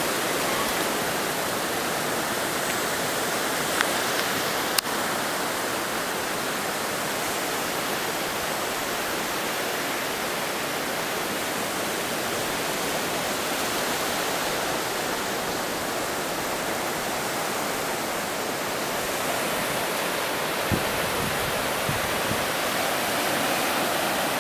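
Surf breaking on a sandy beach: a steady, even hiss of waves, with a couple of brief clicks about four and five seconds in.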